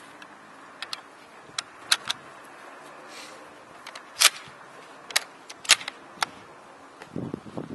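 Sharp metallic clicks and clacks as the action of a 1939 Japanese Type 99 bolt-action rifle is worked by hand: about nine scattered clicks, the loudest about four seconds in. Wind noise on the microphone rises near the end.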